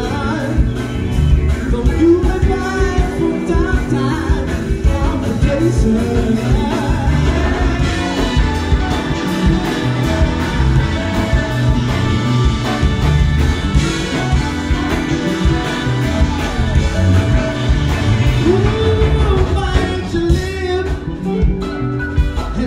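Live funk band playing with a male lead singer: drums, bass, electric guitar and keyboards under the vocal, with a steady beat throughout.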